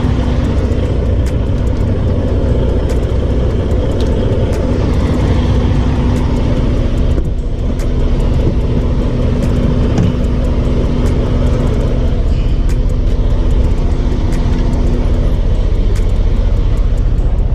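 Semi-truck's diesel engine running steadily at idle, a loud, even low rumble with a steady hum that drops out near the end.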